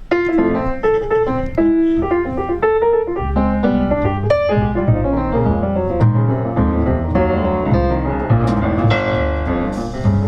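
Jazz piano playing a run of single notes and chords, with an upright double bass joining about three seconds in, a band playing together in a studio take.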